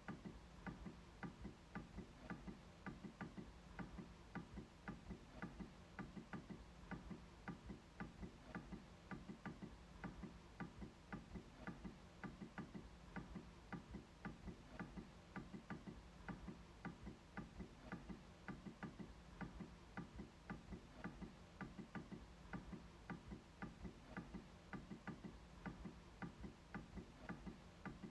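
MacBook trackpad being clicked over and over in a quiet, even rhythm of about three light clicks a second.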